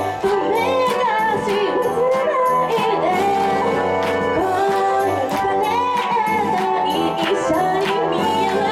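A woman singing a Japanese idol pop song live into a microphone over loud backing music with a drum beat.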